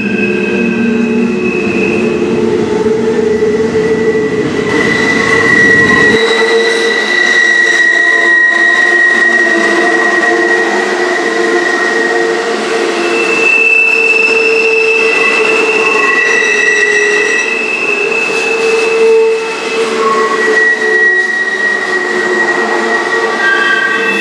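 Double-stack intermodal freight train passing: a steady rolling rumble of the container well cars' wheels on the rails, with high wheel-squeal tones that come and go at different pitches.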